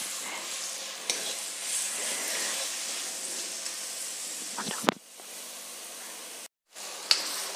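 Chopped onions sizzling in hot oil in a kadhai while a spatula stirs them, with a few light scrapes and knocks of the spatula against the pan. The onions are at the early, pale stage of frying, being cooked just enough to lose their rawness. The sizzle drops in level about five seconds in, and the sound cuts out completely for a moment near the end.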